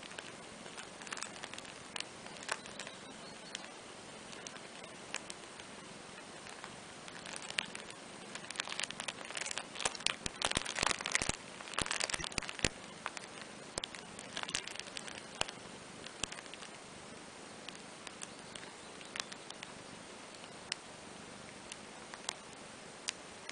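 Soft rustling and scattered small clicks from two cats shifting and nuzzling on a fabric playmat, busiest for a few seconds around the middle, over a low steady hiss.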